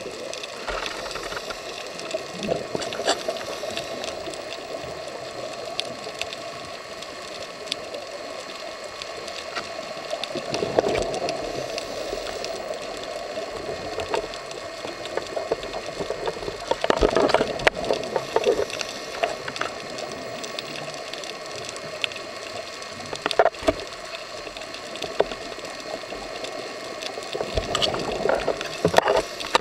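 Underwater sound of a scuba diver's regulator: a steady hiss with scattered clicks, broken by gushing bursts of exhaled bubbles several times, about six seconds apart.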